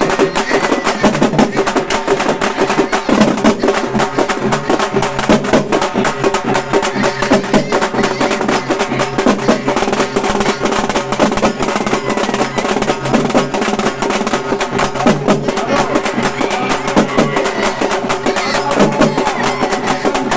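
Halgi frame drums beaten fast with sticks in a dense, driving rhythm, loud and unbroken, with a steady held tone underneath.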